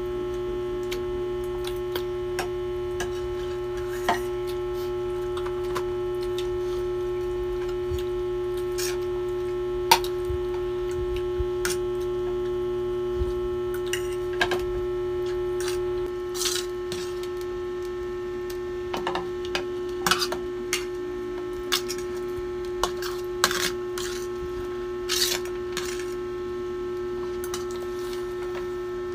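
A steady hum runs throughout, with scattered short clicks and clinks of forks and spoons against plates and a metal serving tray as noodles are eaten, more often in the second half.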